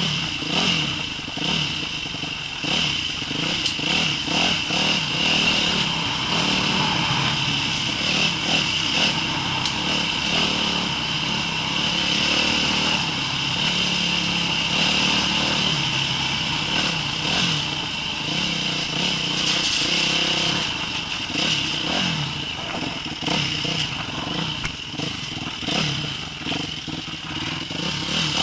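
Yamaha YZ250F dirt bike's 250 cc single-cylinder four-stroke engine, heard from the bike, revving up and down with the throttle while riding a rough, rocky trail. Frequent knocks and clatter from the bike running over rocks.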